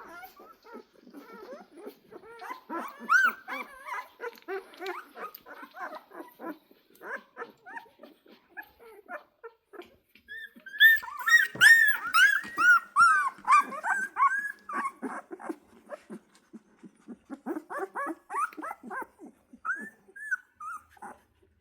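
Young Central Asian Shepherd (Alabai) puppies whimpering and yelping, with many short, high squeals overlapping each other; they are loudest and busiest about halfway through.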